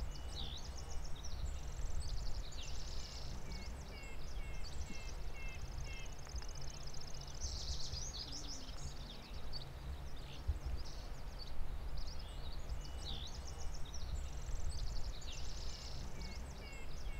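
Several songbirds singing and chirping over one another, with trills and runs of short repeated notes, over a steady low rumble.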